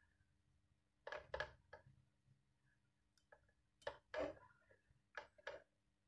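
Faint, sharp taps and clicks of a wooden stir stick against a small glass as coconut oil soap paste is stirred into water, several of them in quick pairs.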